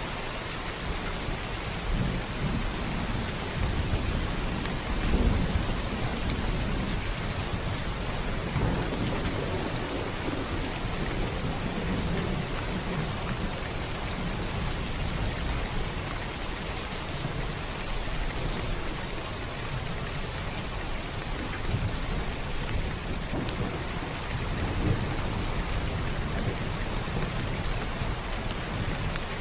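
Steady heavy rain drumming on a roof, with low thunder rumbling in several long swells. The loudest rumble comes about five seconds in, and another comes near the end.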